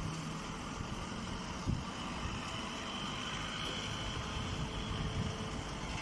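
Hydraulic hay baler and its feed conveyor running with a steady mechanical drone. A faint whine rises out of it for a couple of seconds in the middle, and there is a single knock near the start.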